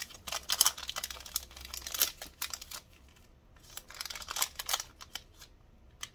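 Clear plastic sticker packet crinkling as it is opened and handled. There are two spells of sharp crackling: the first lasts nearly three seconds, and a shorter one comes about four seconds in.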